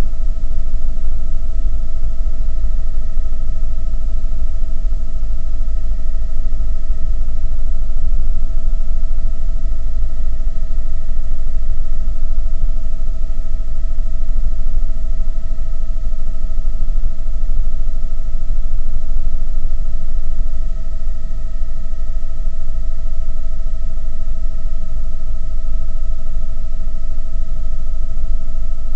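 Helicopter in flight heard from inside the cabin: a loud, steady deep rumble with a constant high whine over it.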